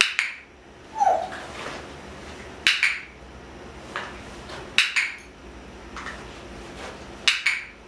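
Sharp doubled clicks, four of them about two to two and a half seconds apart, with a short soft falling squeak about a second in.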